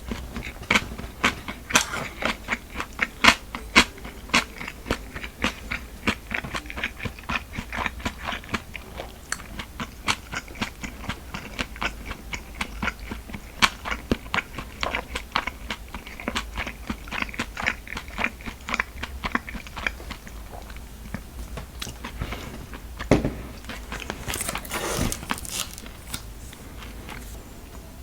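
Close-miked mouth eating sounds: steady chewing and biting with many quick, crisp crunches and wet clicks. About 24 seconds in comes a brief, louder hiss-like noise.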